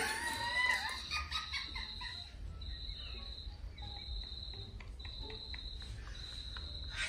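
Two women laughing hard: a loud high squeal at the start, then short breathy bursts of near-silent laughter. A steady high chirring tone keeps breaking off and resuming about every second underneath.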